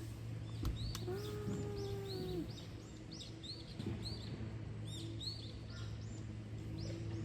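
Small birds chirping, short high calls repeating two or three times a second, over soft background music with a held note about a second in.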